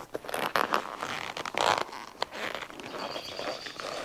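A new seat cover being pulled and worked over a car headrest by hand: repeated rustling and scraping of the cover material, loudest about a second and a half in.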